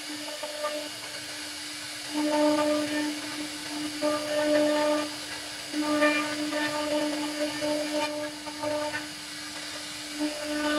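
CNC router spindle whining at a steady pitch while its cutter carves a relief pattern into wood, with a hiss of cutting over it. The whine grows louder and fuller for a second or so at a time as the bit bites into the wood, then drops back.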